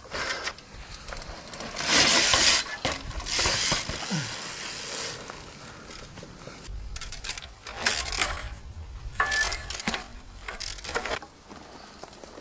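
Trials bicycle ridden and hopped across rocks: metallic clinks and rattles of the bike, with short noisy bursts of tyres hitting and scraping the stone. The loudest burst comes about two seconds in, and a cluster of them follows later.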